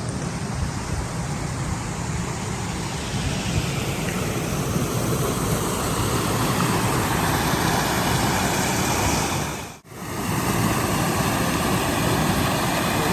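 Steady rushing noise with no clear pitch or rhythm, cut off briefly about ten seconds in.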